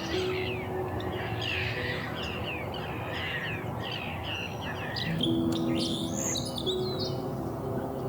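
Several small birds chirping and calling at once in a marsh: a quick run of short chirps that keeps going, with louder, busier calls about five seconds in.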